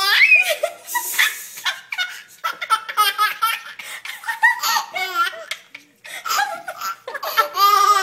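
Baby laughing in repeated bursts of belly laughs and giggles.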